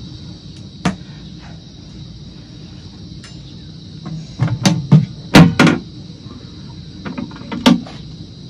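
Matches struck against a matchbox to light a gas-cylinder burner: a sharp strike about a second in, then a quick cluster of strikes in the middle and a few more near the end, over a steady high hiss.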